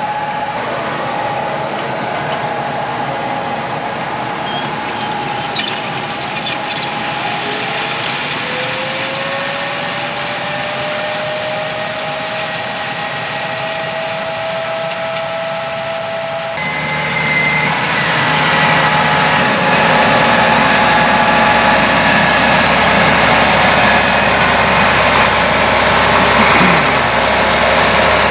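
Tracked farm tractor running steadily while pulling a row-crop planter across the field, with a faint whine rising in pitch from about a third of the way in. About two-thirds of the way through the machine sound gets louder and fuller as the tractor comes close.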